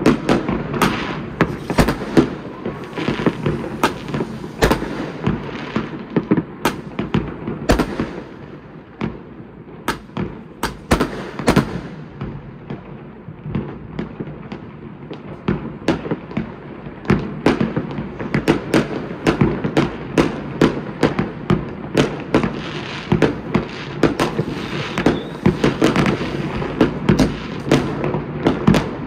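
Many fireworks going off across a city, a steady scatter of sharp bangs and crackling pops. They thin out for several seconds in the middle, then come thick and fast again.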